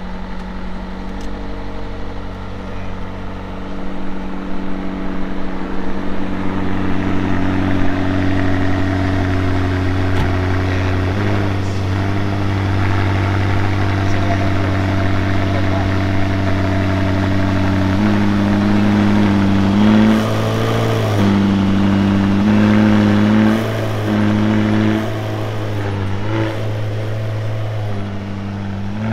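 A car engine running at a steady idle as it warms up, its revs stepping up briefly several times in the second half.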